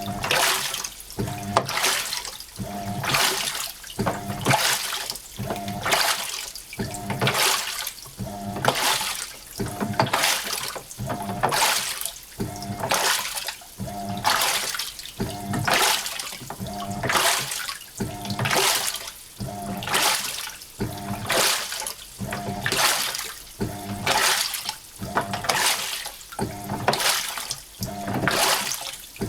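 Hitachi NW-42EF top-loading washing machine agitating its wash: water sloshing in regular swishes, a little more than one a second, as the pulsator turns back and forth, with a short motor whine on each stroke.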